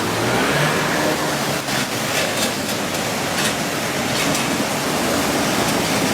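Floodwater rushing past in a steady, continuous noise, with a few faint knocks in the middle.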